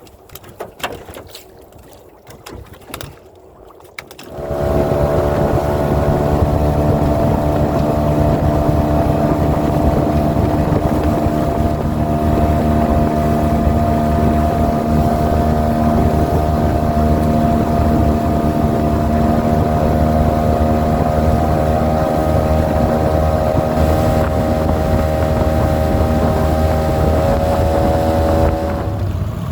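A small fishing boat's motor running at a steady speed. It comes in abruptly about four seconds in after a few faint knocks, holds an even pitch, and eases off slightly near the end.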